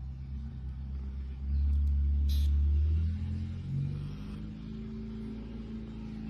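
Low, steady rumble with a faint mechanical hum, swelling louder for about a second and a half a little over a second in, with a brief high hiss in the middle.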